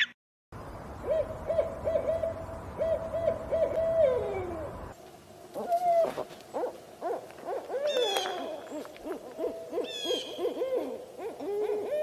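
Owl hooting: a quick series of short, even hoots, then after a break a busier run of short arching hoots, with higher sweeping calls twice near the end.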